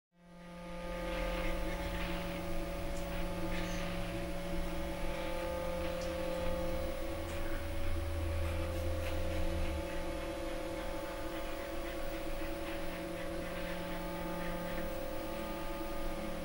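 A steady low electrical-sounding hum with several held tones, rising out of silence right at the start, with a few faint ticks over it.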